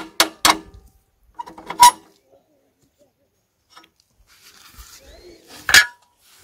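Steel hitch parts of a walk-behind tractor knocking together: a quick run of ringing metal knocks, about four a second, that stops about half a second in. A single clank follows near two seconds, and a louder clank near six seconds as the steel hiller bracket is handled.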